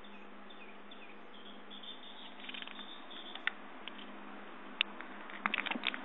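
Small alloy carabiner and water-bottle holder buckle clicking as they are handled: a single click about three and a half seconds in, another near five seconds, then a quick cluster of clicks near the end, over a steady hiss.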